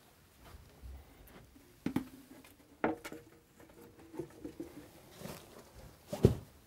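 Handling noises of a large framed canvas picture being lifted and hung on a wall: a few knocks about 2 and 3 seconds in, with a faint scrape between them. Near the end, one louder thump as a cushion is set down on a wooden corner bench.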